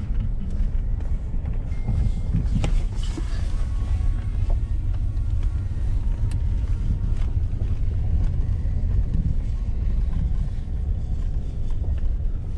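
Steady low rumble of a vehicle driving on a dirt and gravel road, engine and tyre noise heard from inside the cab.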